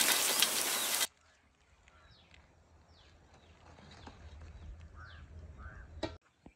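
Hot oil sizzling loudly in a wok, cut off abruptly about a second in. Then quiet outdoor ambience with a few faint bird chirps, a low rumble and a sharp click near the end.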